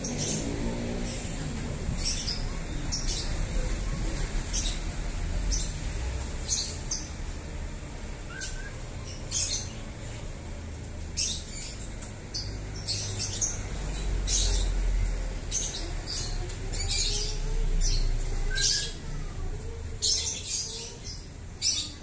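White-rumped shamas (murai batu) calling with many short, sharp, high-pitched chirps, irregularly spaced and at times coming in quick runs.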